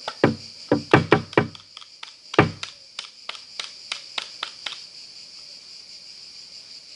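A quick run of sharp clicks and knocks, about a dozen over four seconds, as a small plastic device is handled and its parts pressed, stopping a little before the end.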